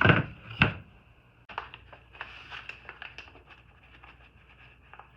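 Two loud knocks in the first second, then a run of light, quick clicks and taps from hand tear-out work on the old camper.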